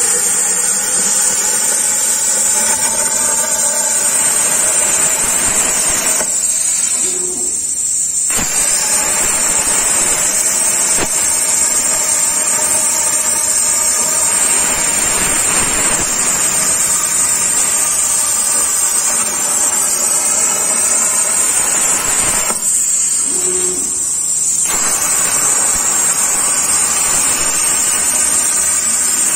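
CNC plasma cutter torch arc running with a loud, steady hiss. The hiss cuts out twice for about two seconds, while a high steady tone carries on through the gaps.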